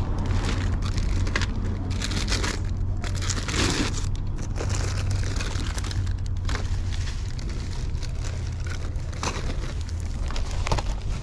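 Clear plastic toy packaging crinkling and rustling irregularly as it is handled and turned over, over a steady low rumble.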